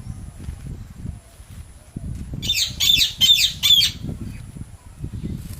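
Parrots calling: a quick run of about seven shrill squawks starting about two and a half seconds in and lasting around a second and a half, over a low background rumble.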